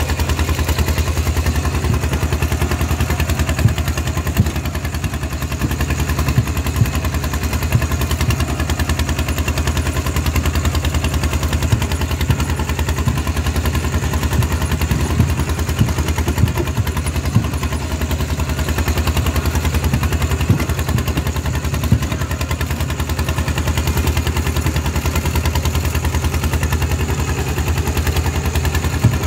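Walking tractor's single-cylinder diesel engine running through a long straight open exhaust pipe while pulling through the field: a loud, rapid, steady exhaust beat with scattered sharp cracks.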